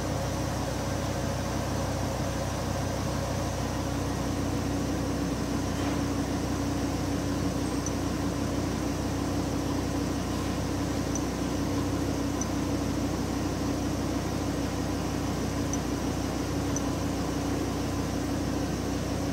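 2008 VW Crafter's diesel engine idling, heard inside the cab as a steady hum and hiss, with a steady higher tone joining about four seconds in.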